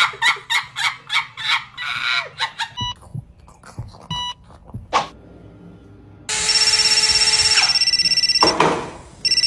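A mobile phone ringing with a fast-fluttering electronic ringtone, which starts about six seconds in, breaks off and rings again near the end. Before it, a woman makes quick rhythmic vocal sounds, and two short electronic beeps follow.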